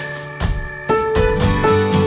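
Background music: plucked guitar notes over a steady low accompaniment.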